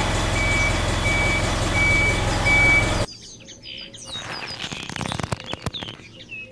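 Vehicle engine rumble with a reversing beeper: four beeps about two-thirds of a second apart, the whole sound cutting off suddenly about three seconds in. Then quieter birdsong with light clicks and rustles.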